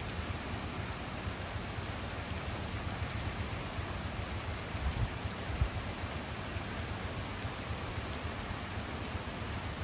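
Steady rain falling on a street and trees, an even dense hiss, with two brief low thumps about halfway through.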